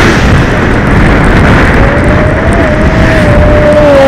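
Wind rumbling on a bicycle-mounted camera's microphone while riding on a wet road, mixed with the tyre and engine noise of a car passing close alongside. About two seconds in, a steady whining tone joins.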